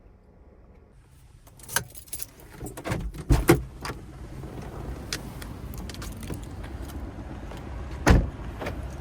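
Keys jangling, with clicks and knocks around a kei van, over a steady rushing background that sets in about a second in. One heavy thump near the end, a car door shutting.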